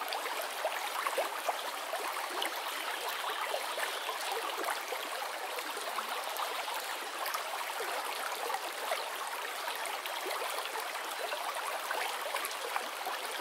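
Aquarium air stone bubbling: a steady stream of air bubbles rising and breaking at the water surface, a continuous fizzing with many small pops.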